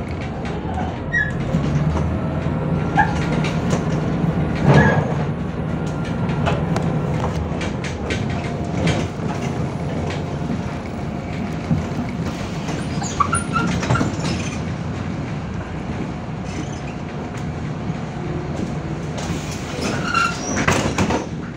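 Inside a MAZ 105.065 articulated city bus under way: a steady low drone of engine, drivetrain and road noise. Scattered rattles and knocks from the body and fittings sound over it, the loudest about five seconds in and near the end.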